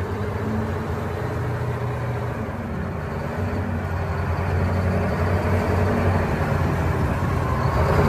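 Caterpillar 988B wheel loader's diesel engine running steadily as the loader moves with a heavy marble block on its forks. The drone grows a little louder about halfway through.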